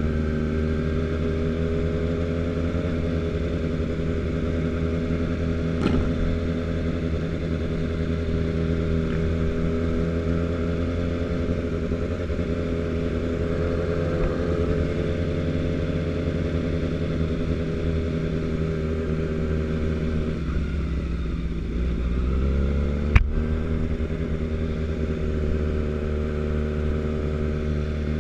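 Sport motorcycle's engine running steadily at low speed as the bike rolls along a gravel lane. The engine note drops for a couple of seconds about two-thirds of the way through, then climbs again. A single sharp click is heard just as it does.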